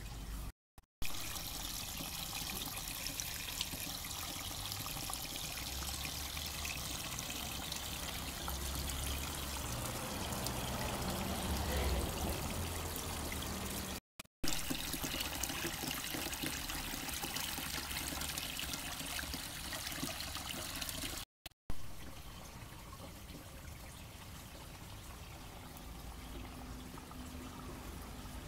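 Water trickling steadily, interrupted three times by a split-second silence.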